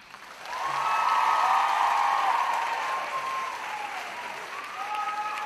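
Large audience applauding, with high drawn-out cheers rising and falling over the clapping. Loudest about a second in, easing off after the middle.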